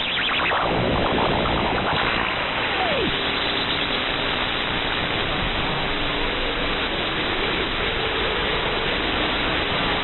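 CB radio receiver on the 11-metre band hissing with static. Warbling, sliding whistles run through the first three seconds, one falling away near the end of them, and faint steady heterodyne tones sit under the noise after that.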